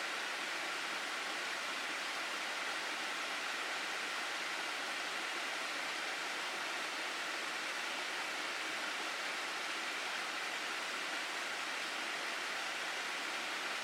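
Steady rushing of a mountain stream's water in a gorge, an even hiss with no breaks.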